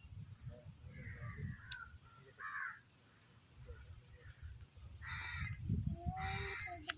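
A crow cawing about four times, harsh calls with the last two the loudest, over a low rumble.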